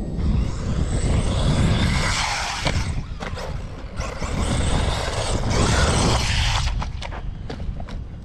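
Wind buffeting the microphone with a heavy rumble, over an RC car driving on dirt, its motor and tyres rising and falling as it speeds up and slows. A few sharp clicks come in the second half.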